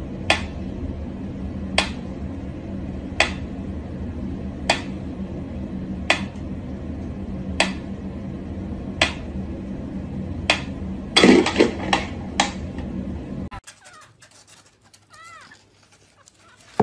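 Mechanical pyramid metronome ticking steadily, about one tick every one and a half seconds, with a brief cluster of louder knocks and rattles about eleven seconds in. After a cut near the end, a kitten gives a few faint, short mews.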